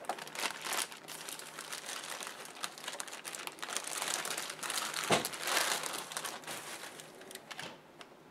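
Plastic packaging crinkling and rustling in the hands as a toy is unwrapped, with a sharper, louder crackle about five seconds in.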